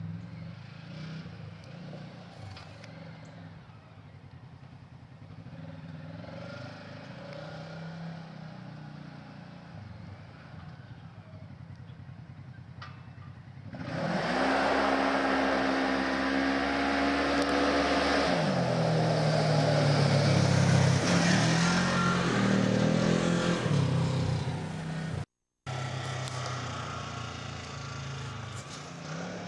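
Polaris RZR XP 900's twin-cylinder engine through its stock exhaust, running at a low steady speed, then about halfway through suddenly revved hard for a burnout, with a loud hiss of spinning tyres, for roughly ten seconds. The sound drops out for a moment before the engine settles back to a lower steady run.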